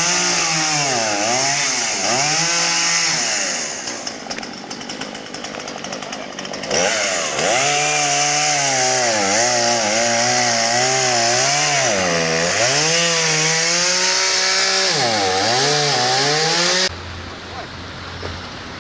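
Two-stroke chainsaw running at high revs, its pitch repeatedly dipping and climbing back as it cuts. It drops to a lower level for about three seconds starting about four seconds in. Near the end it cuts off abruptly, leaving a quieter low steady hum.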